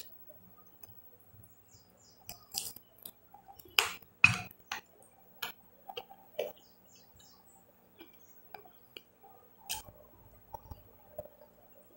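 Close-up chewing and wet mouth smacks of boiled chicken and rice eaten by hand, with scattered sharp clicks, the loudest about four seconds in, and light clinks against a glass plate.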